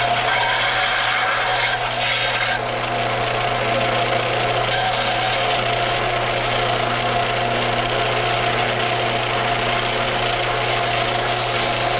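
Belt sander running continuously with a workpiece held against its worn belt: a steady motor hum under a coarse grinding rasp that changes texture a few times as the piece is moved or pressed.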